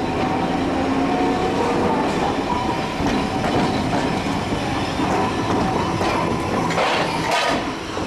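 Iyotetsu 2000-series streetcar rolling slowly past at close range, its steel wheels rumbling and clicking over the rail joints and pointwork, with a brief wheel squeal near the end.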